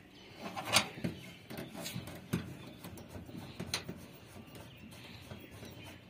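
Scattered sharp metallic clicks and taps from spanners working the flare nuts as copper refrigerant pipes are tightened onto an air conditioner outdoor unit's connections. The loudest click comes about a second in, with a few fainter ones after.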